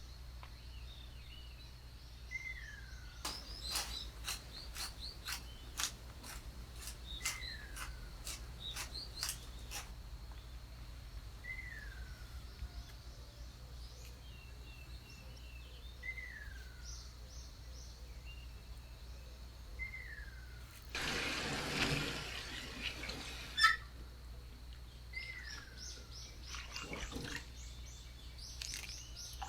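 Birds calling outdoors: a short falling whistle repeats every few seconds, with a run of sharp clicks in the first third. About two-thirds in there is a brief noisy rush, followed by a single loud click.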